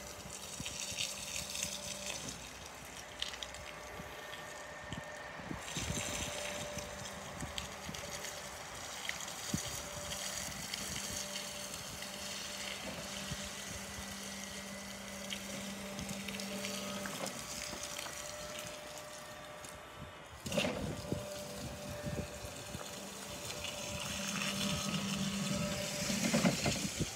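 Linde E16 electric forklift being driven on wet gravel: a steady electric-motor hum over tyre-on-gravel noise. There is a sharp cluster of clicks and knocks about twenty seconds in, and the hum rises again near the end.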